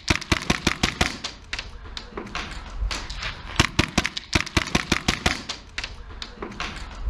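Airsoft guns firing on the field: sharp clicks and short rapid bursts, several a second in irregular clusters.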